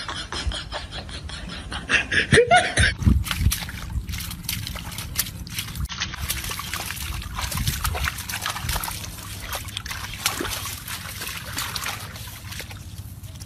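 Dog digging and pawing in wet mud, with sloshing and splattering. Before that, about two seconds in, there is a brief loud call.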